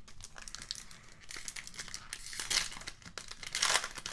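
A 2021 Panini Prizm Draft Picks trading-card pack wrapper crinkling as hands tear it open. Louder crackles come about two and a half seconds in and again near the end.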